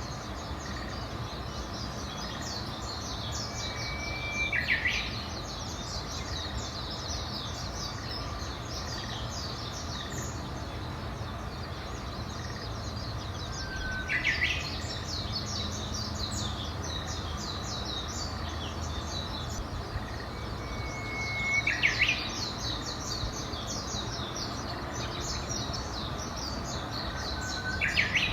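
Birdsong: one songbird repeats the same phrase four times, a held whistle that breaks into a quick burst of notes, over constant high-pitched twittering from many small birds and a low background rumble.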